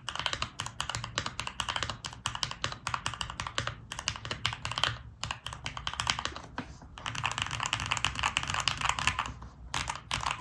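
Steady fast typing on a Luminkey65 mechanical keyboard with lubed and filmed Cherry MX Nixie switches, FR4 plate and GMK keycaps. A dense run of keystroke clacks breaks off briefly about five, seven and nine and a half seconds in.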